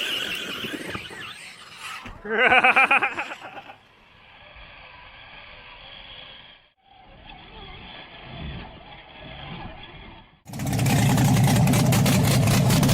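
Off-road rock bouncer buggy engines revving in a string of short cuts, with a high squeal at first. Near the end comes a loud, sustained run at high revs with a fast, even pulsing.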